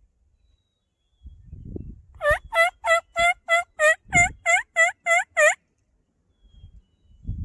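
Hunter's turkey call yelping a hen-turkey series: about eleven evenly spaced, loud notes, roughly three a second, each dipping and rising in pitch, over about three seconds, with a little low rustling before and during it.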